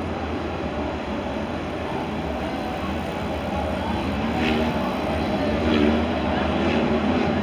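Autocross touring car's engine idling steadily as the car rolls slowly along a dirt track.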